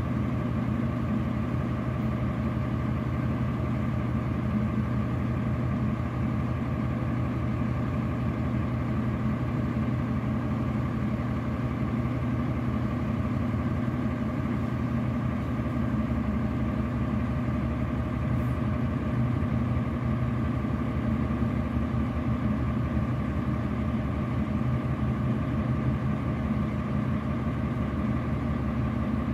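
Heavy truck's diesel engine running steadily at low revs with an even throb, heard from inside the cab.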